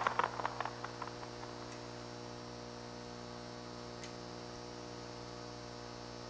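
The last drum and cymbal hits die away in the first second. A steady electrical mains hum follows: a low buzz with many even overtones and faint hiss.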